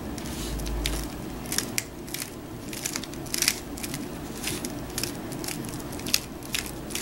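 Plastic 3x3 speedcube (an Aolong v2) turned slowly face by face while an algorithm is worked out, its layers giving irregular sharp clicks and clacks, about one or two a second.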